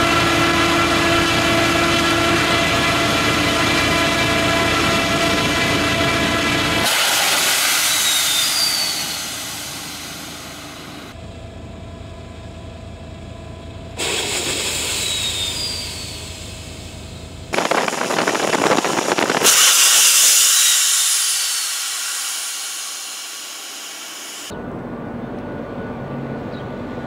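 ScanEagle drone's small piston engine running steadily at full power on its catapult launcher. After about seven seconds, and again in later cut-in takes, the sound turns into loud rushing noise as the pneumatic catapult fires the drone off the rail. Near the end the engine is heard again as a quieter steady drone while the aircraft flies overhead.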